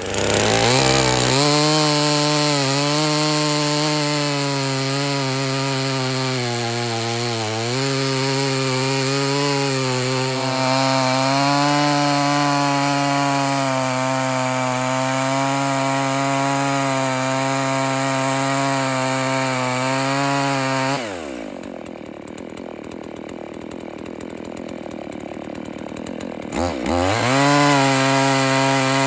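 Two-stroke chainsaw cutting through a freshly felled pine log at full throttle, its pitch wavering a little under load. About 21 s in the engine winds down to a lower, quieter idle, then revs back up to full speed near the end.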